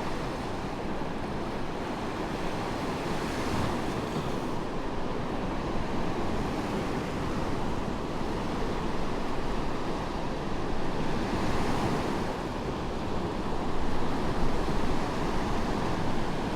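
Medium waves breaking and washing up a sandy beach, a continuous surf wash that swells as each wave comes in, with some wind on the microphone.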